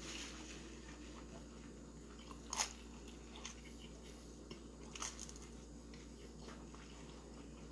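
A person chewing a mouthful of pizza, soft mouth and chewing noises with a few short crunchy clicks. The loudest comes about two and a half seconds in and another about five seconds in.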